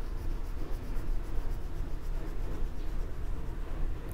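Oil pastel scribbling on drawing paper in quick back-and-forth colouring strokes, a soft scratchy rubbing, over a low steady rumble.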